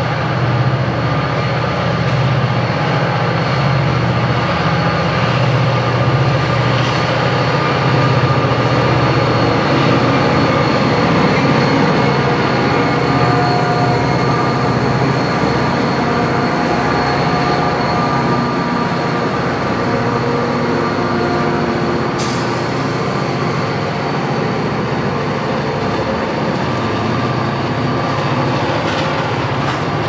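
Three EMD diesel locomotives passing under heavy load, engines running hard with a deep steady rumble and a thin high whine on top, as they fight up a grade on slick, snowy rail. Wheels rolling on the rails follow as the tank cars go by.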